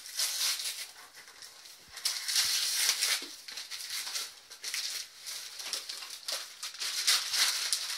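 Wrapping paper being torn and pulled off a cardboard box in rustling, ripping bursts, loudest about two seconds in and again near the end.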